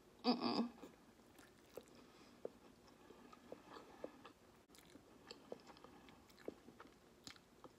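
A person eating instant noodles with chopsticks: one short loud slurp about half a second in, then quiet chewing with soft scattered mouth clicks.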